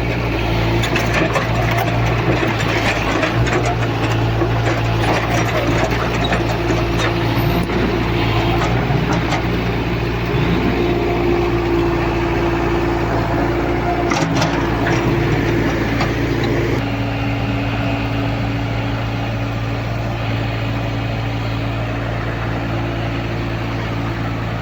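Backhoe loader's diesel engine running steadily while it works, with a few knocks about two-thirds of the way in. The engine note drops shortly after.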